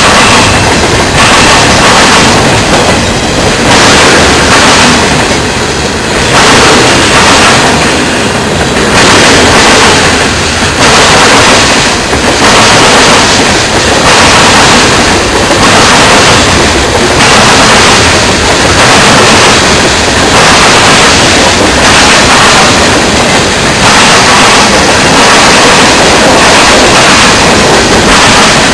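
Freight cars of a manifest train rolling past close by: loud steel-wheel and rail noise that swells and eases in a regular pulse about every one and a half to two seconds.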